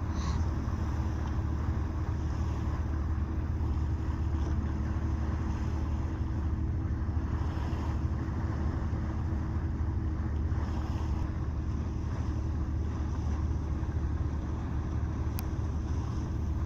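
Steady low drone of a fishing trawler's engine running underway, with some wind on the microphone.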